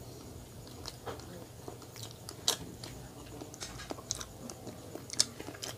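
A person chewing a soft chocolate-coated, marshmallow-filled donut: wet mouth smacks and clicks at irregular intervals.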